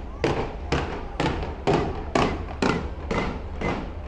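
New Year's fireworks bursting in an even, rhythmic volley of bangs, about two a second, each with a short echoing tail.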